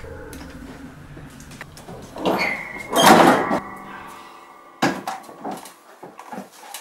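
A pull-down attic hatch being opened: a loud creak about three seconds in that leaves a ringing tone, then a sharp clunk and several lighter knocks as the folding wooden attic ladder comes down.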